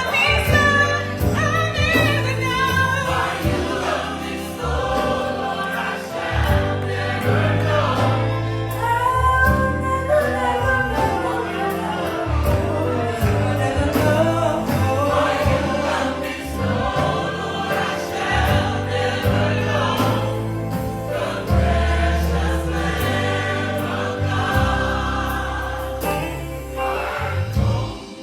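Gospel choir singing a Christmas cantata song, carried over sustained low bass notes.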